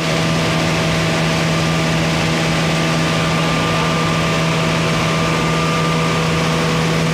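A steady mechanical hum with a constant rushing noise over it, even and unchanging throughout.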